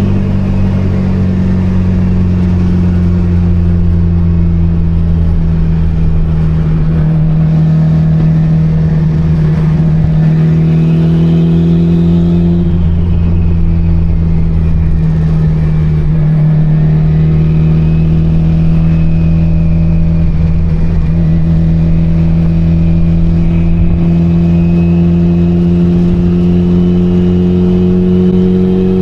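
Mitsubishi Lancer Evolution IX's turbocharged 4G63 inline-four engine running with a steady low drone, its pitch shifting slightly, and a higher whine that rises and then falls near the middle.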